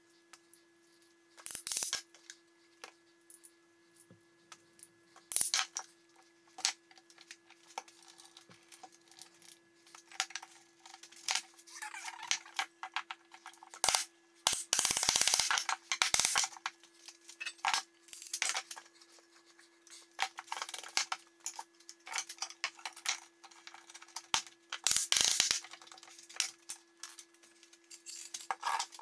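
Scattered knocks and clatters of wooden frame pieces being handled, set down on a workbench and tapped together with a mallet, with a run of louder mallet blows about halfway through. A faint steady hum lies underneath.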